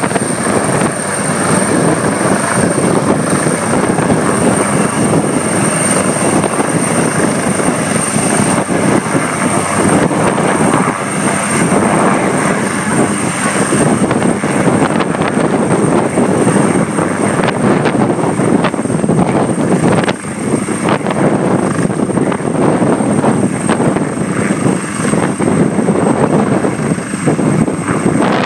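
AgustaWestland AW139 twin-turbine helicopter running close by: a loud, steady rotor and engine roar with a thin, high turbine whine over it. The roar eases briefly about two-thirds of the way through.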